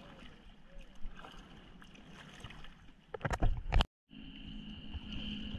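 Sea water lapping and sloshing against a surfboard, with a few loud splashes or knocks about three and a half seconds in. The sound then cuts out for a moment and comes back as a steadier water-and-wind hiss.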